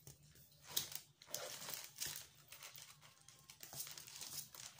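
Faint, irregular crinkling and rustling as a new handbag and its packing material are handled, in short scattered strokes.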